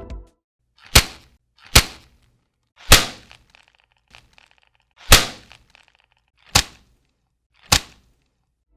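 Six sharp cracking knocks at uneven intervals, each dying away quickly.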